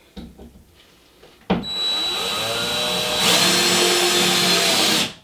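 Cordless power drill driving a screw through a wooden furring strip into drywall. The motor starts abruptly about a second and a half in, rises in pitch as it spins up, gets louder partway through, and stops suddenly near the end. A few light handling clicks come before it.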